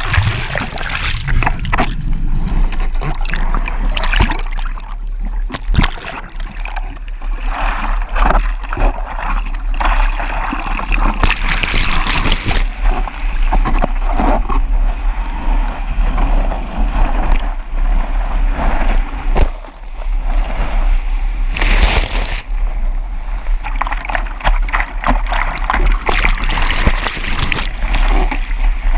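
Seawater splashing and rushing over a surfboard-mounted action camera, with loud washes of whitewater about eleven and twenty-two seconds in, over a constant low wind rumble on the microphone.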